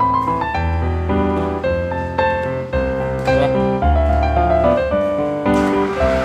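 Background music led by piano or electric keyboard, with a sustained bass under it.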